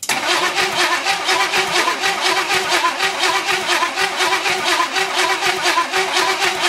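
Starter cranking the hot rod's engine over with a fast, even beat and a steady whine, starting abruptly. The engine does not fire because it has no fuel yet: it is being spun to build oil pressure.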